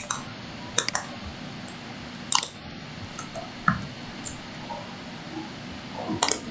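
Computer mouse clicking: about six sharp single clicks, two of them in quick succession about a second in, as items are selected on screen.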